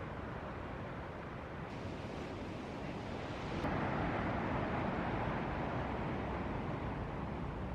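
Ocean surf, with wind on the microphone; a wave breaks about halfway in, swelling louder and then easing off slowly.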